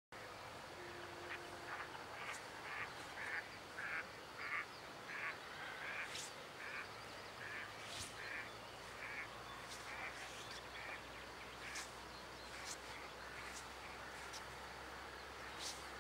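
Birds calling at a river: a faint run of short repeated calls, about two a second, that stops near the end, with a few sharp high chirps over a steady hiss.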